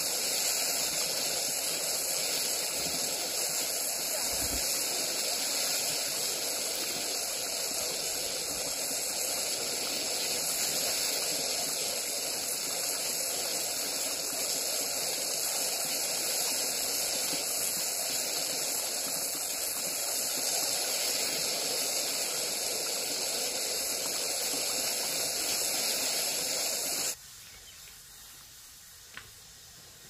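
Steady, loud, high-pitched hissing drone of outdoor ambience that cuts off abruptly near the end, leaving a much quieter background with a single faint click.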